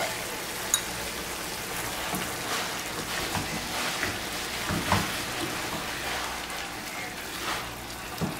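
Stir-fry sizzling in a nonstick frying pan just after sauce and water have been poured in. A spatula scrapes and taps the pan now and then.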